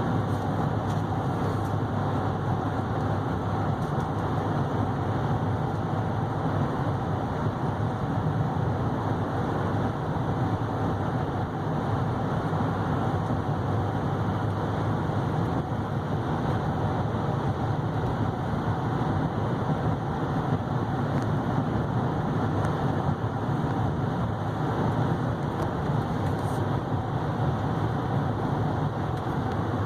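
Steady cabin noise of the 6.6-litre Duramax diesel pickup under way: engine and road noise heard from inside the cab, even and unchanging.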